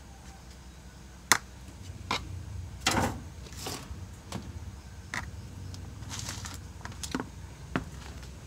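A metal spoon mixing a flour-and-egg coating on a ceramic plate: irregular sharp clinks of spoon on plate about once a second, with a couple of short, soft scrapes through the flour.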